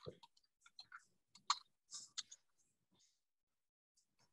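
A few faint, scattered clicks at a computer, bunched in the first two and a half seconds.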